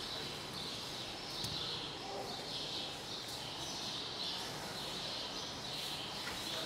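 A small animal's high, raspy call repeating steadily about every three-quarters of a second, over a low background hum.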